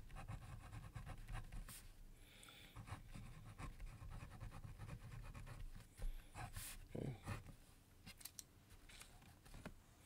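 Faint pen scratching on paper as words are handwritten, with a few light ticks of the pen along the way.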